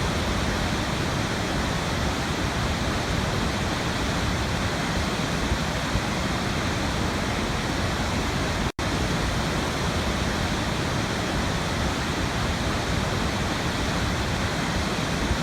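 Waterfall: a steady, even rush of falling water, broken once by a split-second gap a little past the middle.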